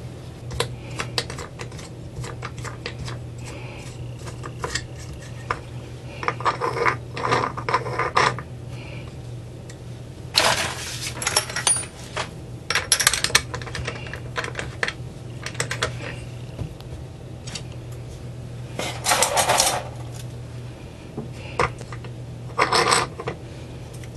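Metal parts of a homemade mainspring winder being handled and taken apart on a tabletop: scattered clicks and clinks, with several short bursts of metal clattering and scraping. A steady low hum runs underneath.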